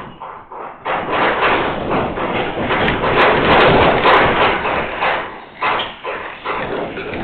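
Earthquake shaking a building: a loud, dense rattling and clattering of doors and loose objects over a rumble. It builds about a second in, peaks a couple of seconds later, then eases off.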